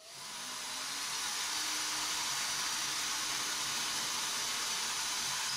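Power drill with a 6 mm bit boring a hole into a ceiling. It spins up over the first half second, then runs steadily.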